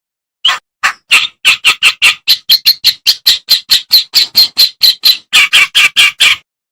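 Reed warbler (kerak basi) singing: a rapid run of short, harsh, chattering notes, about four or five a second, that breaks off shortly before the end.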